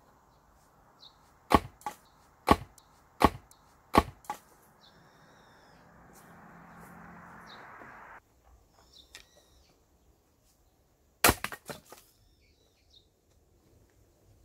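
A French military axe chopping firewood: a run of five sharp strikes into the logs, under a second apart, then after a pause one louder strike followed by a few light knocks. A hiss swells in between and cuts off suddenly.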